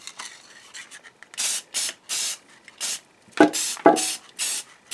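Aerosol spray-paint can sprayed in about eight short hissing bursts, starting about a second in, as a hydraulic cylinder is painted. Two short knocks come a little past halfway.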